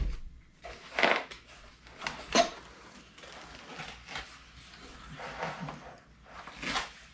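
Long cardboard rifle box being opened by hand: a series of scraping, rustling bursts as the flaps are pulled apart and folded back, the sharpest about two and a half seconds in.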